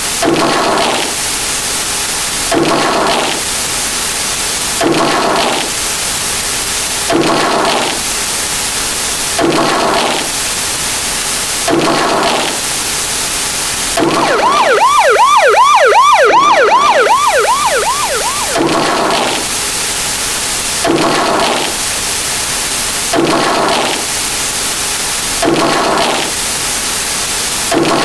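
A dense pile of stacked sound effects: a harsh static hiss with a short burst about every two seconds. About halfway through, a fast wailing siren sweeps up and down for about four seconds and is the loudest part.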